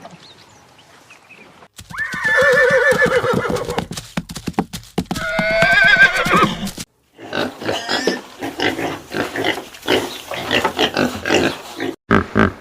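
Horse whinnying: two long, quavering neighs, then a run of shorter, choppier calls.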